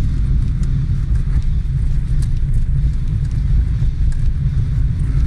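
Car being driven on the road: a steady, loud low rumble of engine and road noise with no change in pace.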